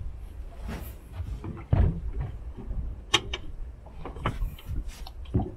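Irregular knocks and clicks, the loudest a low thud about two seconds in, over a low rumbling background.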